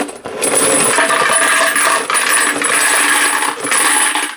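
Spent .30-06 brass cartridge cases being poured into a small wet tumbler, a dense jingling clatter of brass on brass that cuts off suddenly near the end.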